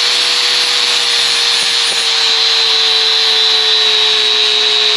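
Electric angle grinder running at full speed with a loud, steady high whine and hiss.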